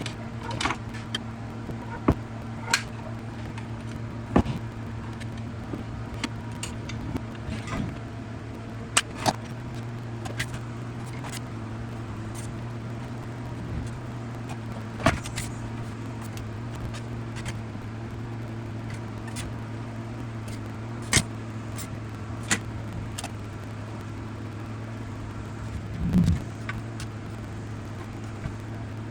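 Drill press motor running with a steady low hum, under scattered sharp clicks and knocks of metal parts and tools being handled, with a louder knock near the end.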